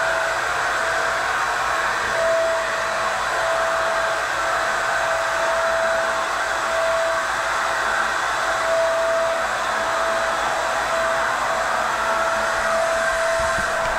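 Steady whooshing of a small electric blower motor, with a faint whine that comes and goes.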